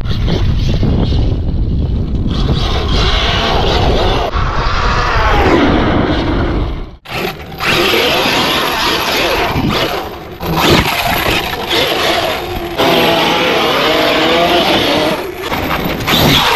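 Arrma Kraton 8S RC monster truck running hard, its 800 kV brushless motor and gears whining up and down in pitch with the throttle over a rushing noise. The sound drops out abruptly about seven seconds in, then picks up again.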